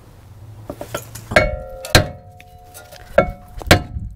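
A sledgehammer strikes the cast-iron rear brake rotor four times, each blow leaving a short metallic ring, to break the rotor loose from the hub.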